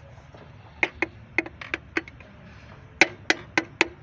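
Sharp metallic taps and clinks of engine parts or hand tools being struck. They come in two quick runs of about three to four a second, the second louder, each with a brief ring.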